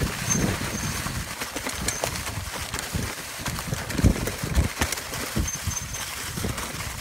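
Mountain bike descending a forest trail covered in dry leaves: tyres rolling through the leaves while the bike rattles and jolts with irregular low thumps over bumps.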